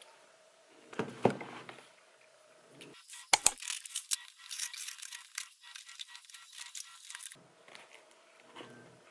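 A cardboard box set down with a soft knock about a second in, then packing tape torn open on the box: a sharp snap followed by about four seconds of crackly ripping.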